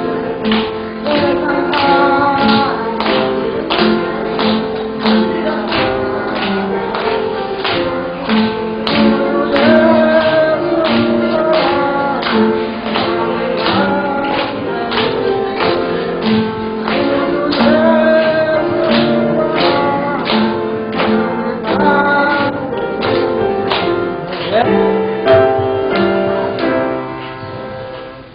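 Church praise song: voices singing a melody over strummed guitar accompaniment that keeps a steady beat.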